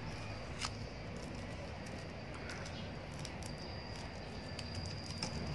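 Small ticks and crackles of tape being peeled off a small plastic seed vial by hand, over a steady low hum. A thin, steady high tone comes in about three and a half seconds in and holds.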